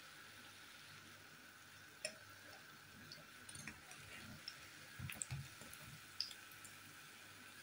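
Faint sizzle of hot oil with scattered small pops as battered tuna fritters shallow-fry in a pan. Light clicks and a few soft knocks come from metal tongs turning the fritters, most of them about two thirds of the way through.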